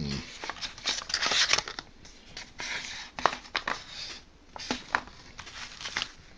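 A cardboard shipping box and its paper contents being handled: irregular rustling and scraping with a few sharp clicks and light knocks.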